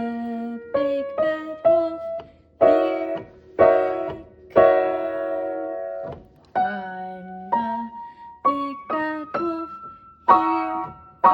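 Piano playing a simple blues-scale tune: single notes and chords struck one after another, some held for a second or more.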